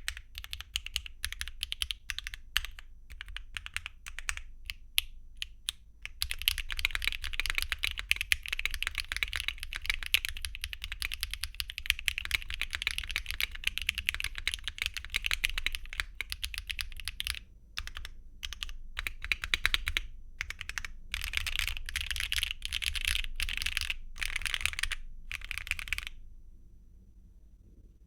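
Typing on a Mode Encore mechanical keyboard with HMX x SillyWorks Hyacinth V2U linear switches, a copper plate and copper bottom case with no foam, and Cherry-profile double-shot ABS keycaps. It starts with separate, spaced keystrokes, goes into fast continuous typing, slows to scattered strokes, then types fast again before stopping a couple of seconds before the end.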